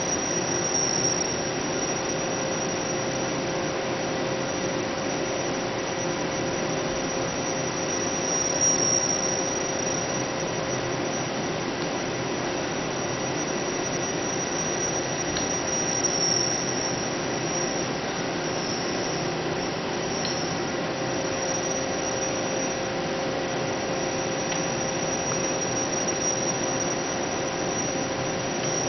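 Steady drone of running machinery, a hum with several high whining tones that hold the same pitch throughout, with a faint click now and then.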